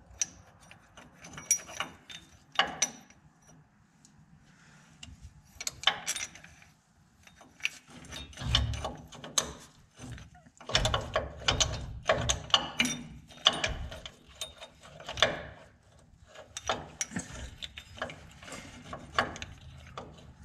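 Hand ratchet wrench clicking in short repeated runs, with pauses and a few dull metal knocks, as the front differential mount bolts are run back in over the diff-drop spacers.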